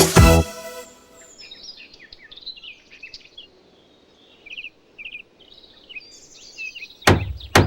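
The end of a music track about half a second in, then birds chirping softly in short calls. Two loud, sharp thumps come near the end, half a second apart.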